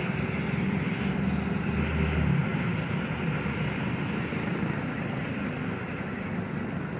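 A car driving, with a steady low engine rumble and road noise.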